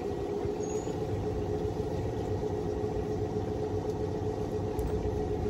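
Small boat's motor running steadily, a constant hum with one even mid-pitched tone over a low rumble.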